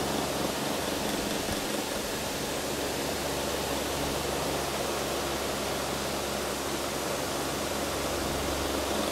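Steady, even hiss with a low electrical hum underneath, unchanging throughout.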